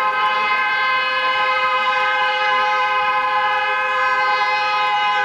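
Car horn held down in one long, steady blast, two notes sounding together.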